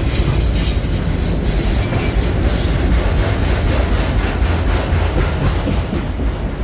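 Freight train of autorack cars rolling past: a steady loud rumble of steel wheels on rail with rapid clicking from the wheels.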